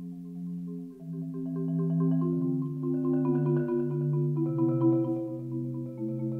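Solo concert marimba played with four mallets: low tones held under a quicker line of short repeated notes higher up, swelling louder after about a second.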